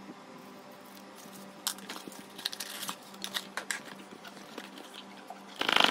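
Unboxing packaging being handled: cardboard, tissue paper and a plastic bag crinkling and rustling, with small clicks and taps. The sounds come after a quiet start and build to a short, loud burst of noise near the end.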